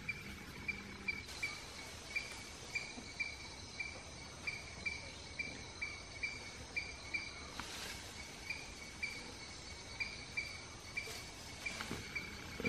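An insect chirping steadily in an even rhythm, about two chirps a second, over a faint hiss of forest ambience.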